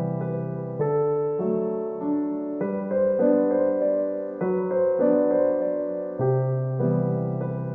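Background music: a gentle piano or electric piano playing slow, sustained chords that change about every second.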